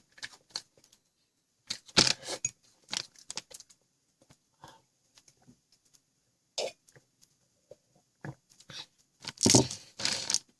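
Scattered short crunches and crinkles from handling a snack and its packaging, with louder clusters about two seconds in and near the end.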